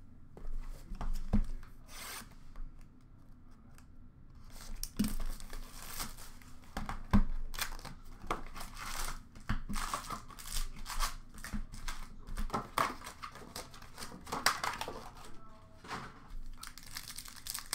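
Upper Deck hockey card packs being torn open by hand, the wrappers crinkling and rustling in irregular bursts, with a few sharper knocks.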